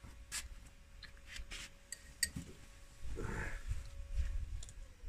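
A metal fork clicking against a ceramic bowl a few times, then, about three seconds in, a crunchy bite into unripe green mango followed by chewing.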